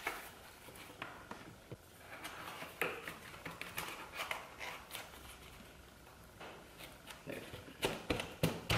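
Hands pressing and rubbing a block of packed corrugated cardboard strips in a plastic tray, giving scratchy rustles and scrapes with a quick run of sharp taps near the end.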